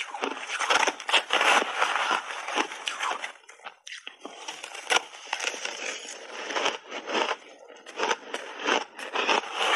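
Close-miked crunching of refrozen purple shaved ice being chewed in big mouthfuls, as a dense run of sharp crunches. It breaks off briefly about three and a half seconds in as a fresh spoonful goes into the mouth, then the crunching starts again.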